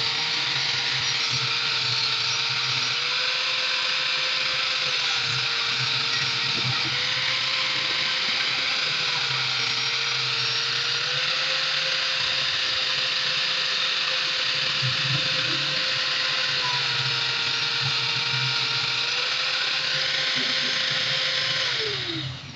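Electric grinder motor running steadily with a high whine, its pitch shifting slightly up and down. It is switched off near the end, and the whine falls as it spins down.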